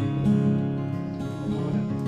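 Background music: acoustic guitar strumming and plucking sustained chords.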